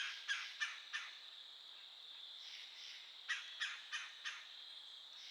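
A woodpecker calling in two series of four short, harsh calls, one at the start and one about three seconds later, over a steady high insect drone.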